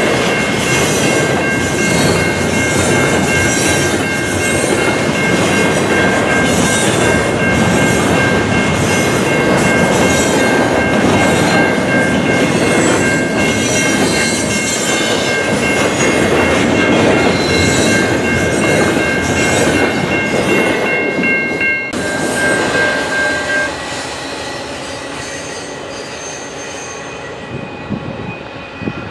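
Double-stack intermodal freight cars rolling past, a loud steady rumble of wheels on rail with a faint rhythmic clatter over the joints, and a steady high-pitched squeal on top. About three-quarters of the way through, the squeal stops and the sound drops to a quieter rumble as the end of the train draws away.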